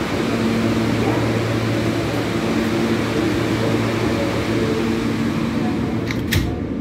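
Subway car standing at a station with its doors open, its ventilation and equipment giving a steady hum. Near the end the sliding doors shut with a single sharp knock.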